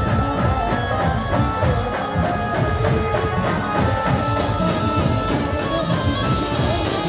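Loud band music with a steady, driving beat of drums and regularly repeating cymbal strikes under held melody notes.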